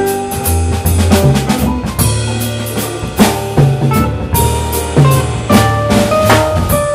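Small jazz band playing live: plucked double bass notes, a drum kit keeping time with snare and bass drum hits, keyboards and a mandolin.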